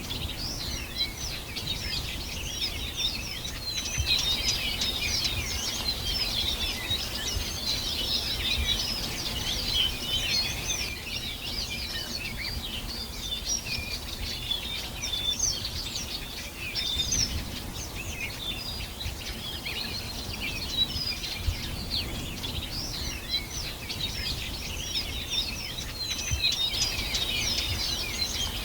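Many birds chirping and singing at once, a dense overlapping chorus of short high calls that never lets up, over a steady low rumble.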